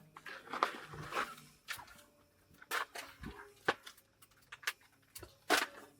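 Scattered short clicks and knocks, about a dozen, irregularly spaced, with a rustle in the first second and a brief low pitched sound about three seconds in.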